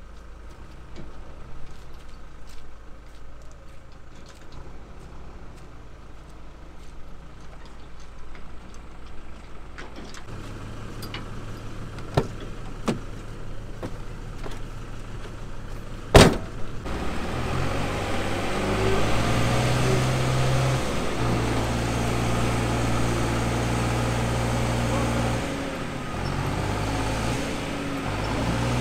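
A truck-based motorhome's engine running while the vehicle is stuck in deep mud. A door slams sharply about halfway through. After that the engine is louder and its pitch shifts as the driver tries to drive it out.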